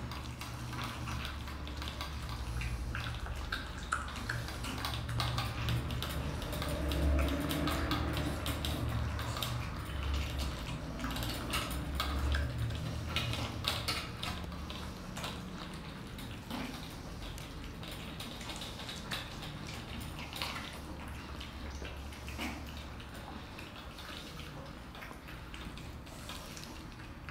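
Several cats eating wet food from stainless steel bowls: wet chewing and lapping, with many small irregular clicks and clinks of the metal bowls.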